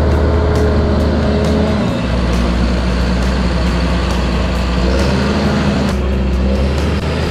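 Large John Deere farm tractor's diesel engine running steadily, a loud low hum that shifts abruptly about two seconds in and again near six seconds.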